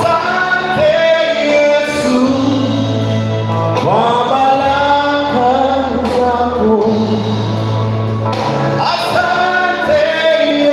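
A man singing a gospel song into a microphone, with the long held notes of a melody over instrumental backing with sustained bass notes.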